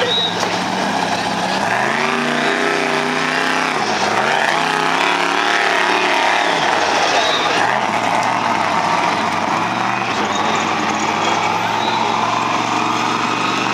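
Mega truck's engine revving hard, its pitch climbing and dropping several times as the truck powers and slides through the mud.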